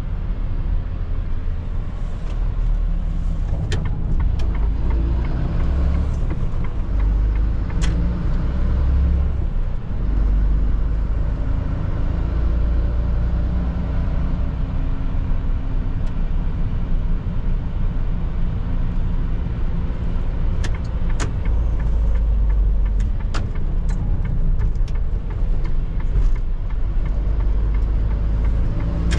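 Mercedes-Benz Atego truck's diesel engine and road noise heard inside the cab while driving: a steady low rumble whose engine note drifts up and down with speed. A few sharp clicks come through at irregular moments.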